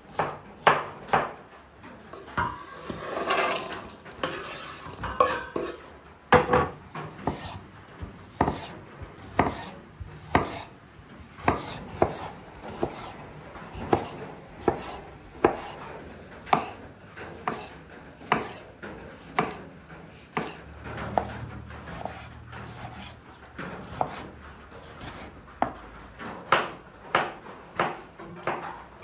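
A kitchen knife chopping tomatoes on a wooden cutting board: a steady run of sharp knife strikes, about one to two a second. A stretch of softer rubbing sounds comes about three seconds in.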